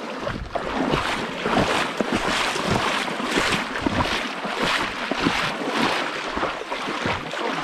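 Water splashing and sloshing as legs wade through a shallow, flowing river, in an uneven run of splashes two to three a second over the rush of the current.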